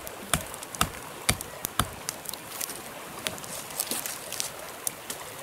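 A wooden stake being driven into the ground with the back of a hatchet. There are four hard knocks about half a second apart in the first two seconds, then lighter, sparser taps.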